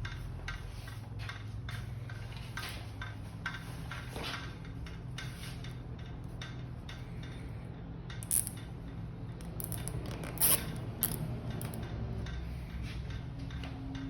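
Light clicking and small plastic and metal snaps from hand work on the e-bike's wiring, fastening the last cable tie at the front motor, with a few sharper snaps about eight and ten seconds in, over a steady low hum.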